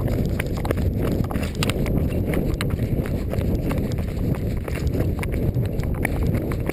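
Running footsteps striking a dirt trail in a quick, steady rhythm during a fast downhill run, under loud wind rumble on the body-worn camera's microphone.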